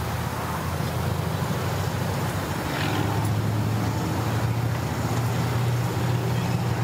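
An engine running steadily, a low hum that grows stronger about three seconds in.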